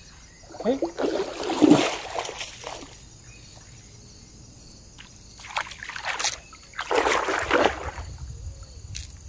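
Shallow river water splashing and sloshing in three irregular bursts, the longest about a second in.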